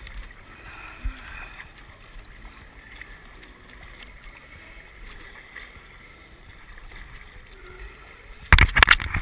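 Water sloshing and lapping around a plastic sit-on-top kayak as it is paddled through choppy water. Near the end there is a sudden loud rush of noise lasting under a second.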